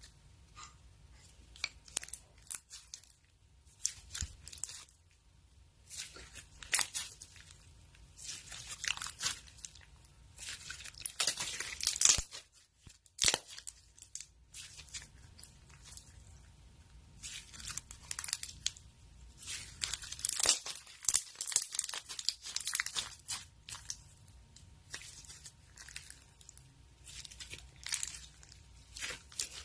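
Slime being squeezed, stretched and poked by hand, crackling and popping in irregular bursts as air pockets in it burst.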